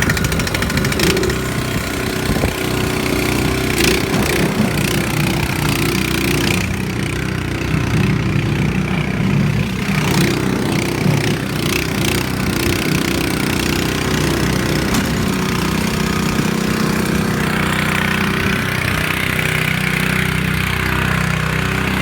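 Honda HS621 snow blower's four-stroke engine running steadily, just after starting.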